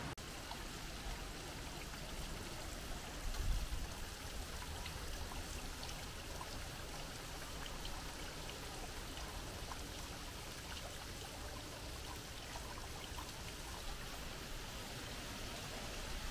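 Small waterfall trickling and splashing steadily over rocks into a pond.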